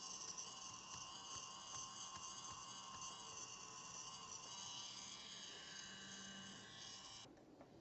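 Small hand-held electric rotary motor spinning an abrasive wheel against the nose area of an acetate eyeglass frame: a steady high whine that cuts off abruptly about seven seconds in.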